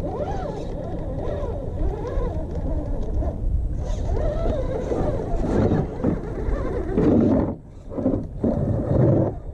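Redcat Gen8 RC crawler's electric motor and geared drivetrain whining, its pitch rising and falling with the throttle as it crawls. There are two louder surges of power near the end.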